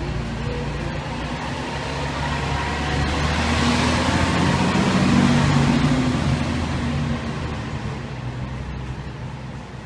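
FDNY fire engine's diesel engine running as the truck drives past, swelling to its loudest about five seconds in and then fading away.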